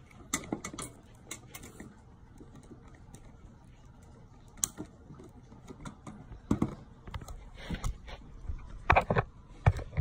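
Irregular clicks, taps and knocks from a boxed X-Shot MK3 toy blaster, cardboard and plastic, being handled against a glass tabletop, with a few louder knocks in the second half.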